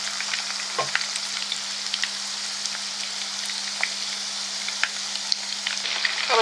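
Small batter-coated boneless chicken pieces deep-frying in hot oil in a kadai: a steady sizzle with frequent small pops and crackles.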